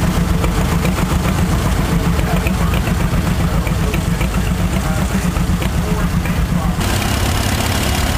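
An engine idling steadily with an even low pulse; a hiss above it cuts off abruptly about seven seconds in.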